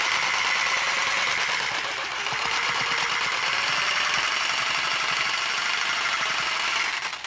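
Old electric reciprocating saw running steadily with its blade sawing into the base of a small tree trunk, cutting slowly: the owner puts the poor cutting down to an old, worn blade. The saw stops just before the end.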